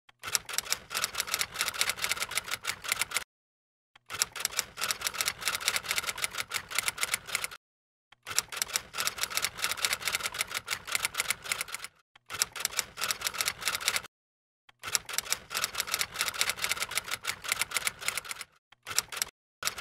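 Typing sound effect: rapid key clicks in runs of a few seconds, broken by brief pauses, as on-screen text types itself out.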